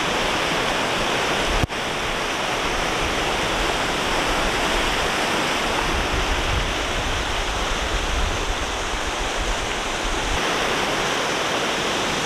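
Fast mountain river rushing over rocks and small cascades: a steady, dense white-water rush with a momentary break about two seconds in.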